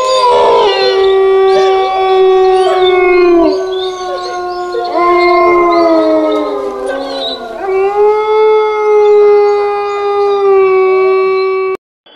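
Wolves howling in chorus: several long howls overlap, some held on one pitch and others sliding down at their ends. The sound cuts off abruptly near the end.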